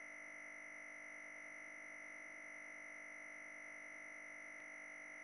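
Faint, steady high-pitched electronic tone, holding one pitch throughout, with fainter higher and lower tones alongside.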